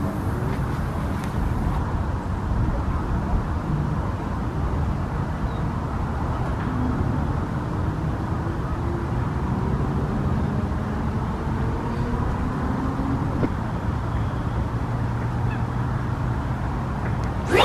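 A steady low rumble of background noise with faint, drawn-out gliding tones. Near the end comes the sharp rising swish of a carp rod being cast.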